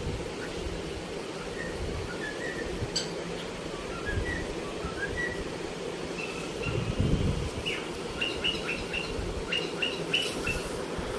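Cockatiel whistling and chirping: a run of short rising whistles, then quicker, sharper chirps in the second half. A steady low hum runs underneath, and a brief low rumble comes about seven seconds in.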